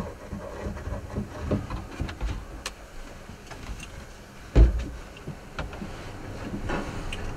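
Uneven low rumble of wind on the microphone, with scattered soft knocks and clicks and one heavier low thump about four and a half seconds in.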